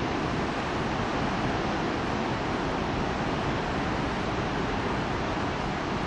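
A large, high-volume waterfall: a whole river plunging about 90 metres from a dam outlet, heard as a loud, steady rush of falling and churning water without a break.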